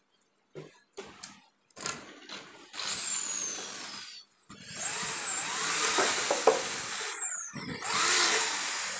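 A few short knocks, then a power tool's motor running with a high whine. The whine glides down at first, and from about five seconds in it gets louder and its pitch rises and sags several times.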